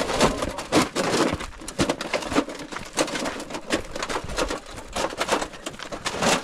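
Wheelbarrow rattling and jolting over a rough stony track, with crunching steps on loose rock: irregular clattering knocks, several a second.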